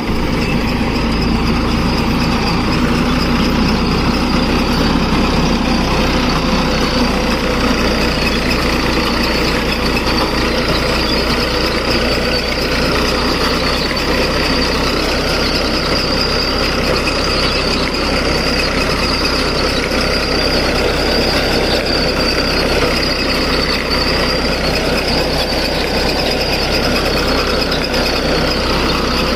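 Bengal gram (chickpea) reaper-harvester running steadily, its engine giving a loud, even mechanical drone.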